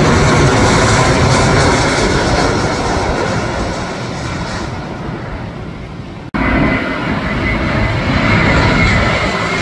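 Jet engines of a SpiceJet Boeing 737 on low final approach passing overhead, the engine noise fading away over about six seconds. After an abrupt cut, a second landing airliner, an Air India Airbus, is heard approaching, its engines running loud with a thin steady high whine.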